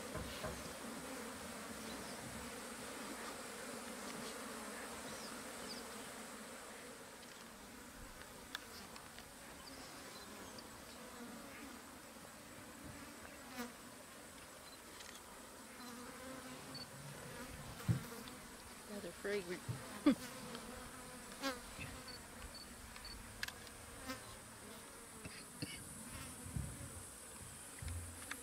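Flies buzzing steadily around a carcass, with a thin high insect hiss behind them and a few faint scattered clicks in the second half.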